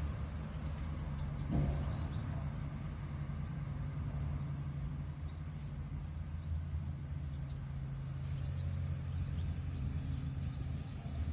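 A steady low mechanical hum runs throughout, with a few faint, short high chirps now and then.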